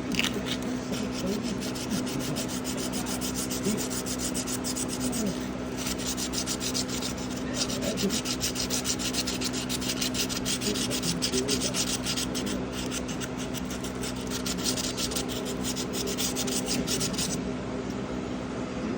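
Rapid back-and-forth scrubbing with a small abrasive inside a pocket knife's handle cavity, against the brass liners, going in quick strokes and stopping near the end.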